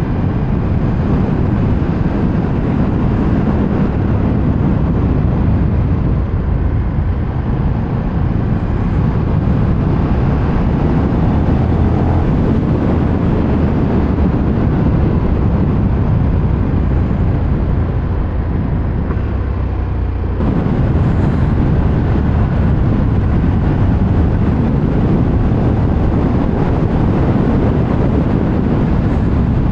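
Riding on a KTM 1390 Super Duke R: a steady rush of wind on the microphone over the low running of its V-twin engine. About two-thirds of the way through, the sound suddenly gets louder and brighter.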